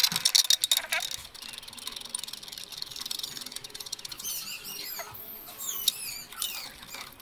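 Rapid metallic clicking and clinking of hand tools and handlebar hardware during the handguard fitting for about the first second. From about four seconds in, a run of quick, high squeaky chirps.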